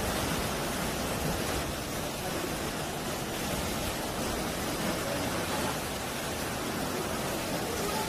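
Sea waves washing and breaking over a rocky shore, a steady rush of surf and churning foam.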